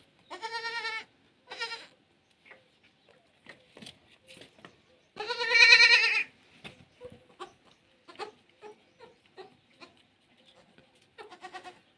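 Goats bleating in quavering calls: two short bleats at the start, a louder, longer one about five seconds in, and a faint one near the end, with light scuffling between them.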